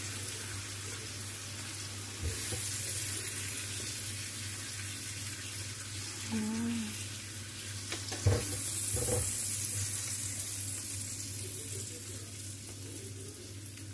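Steady kitchen noise: an even hiss over a constant low hum, with two soft knocks about eight and nine seconds in.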